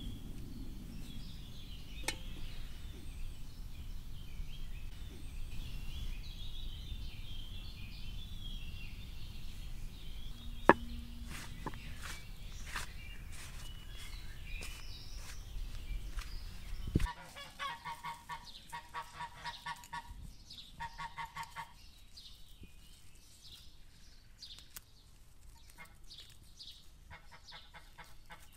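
Small birds chirping over a steady low rumble, with one sharp knock about ten seconds in. From about seventeen seconds on, the rumble stops and farmyard fowl call in repeated quick honking series, twice.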